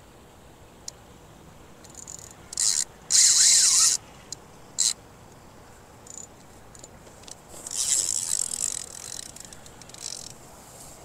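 Spinning reel working in short whirring bursts while a big hooked fish is fought; the loudest burst comes about three seconds in and lasts under a second, with a longer, weaker stretch around eight seconds.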